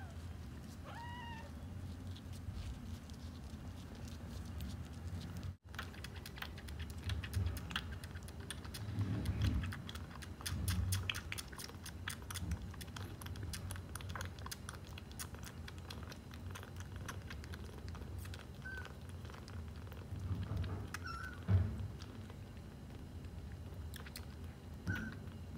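A very young kitten gives a couple of short, high mews. After a break, a kitten suckles from a small nursing bottle with fast, wet clicking and smacking, breaking off into a few short squeaks near the end.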